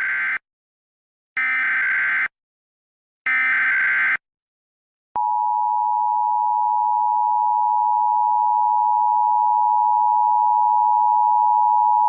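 Emergency Alert System tones: three bursts of SAME digital data tones, each under a second and about a second and a half apart, the end-of-message code after an alert. About a second later the steady two-tone EAS attention signal starts and holds.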